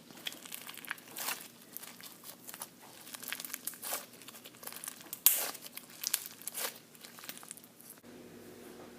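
Slime being squeezed and worked by hand, giving irregular crackling, popping and crinkling sounds with one sharp pop a little past the middle. The crackles stop about a second before the end, leaving a faint steady hum.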